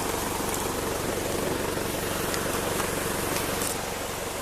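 A vehicle's engine idling steadily, under the even rush of a waterfall.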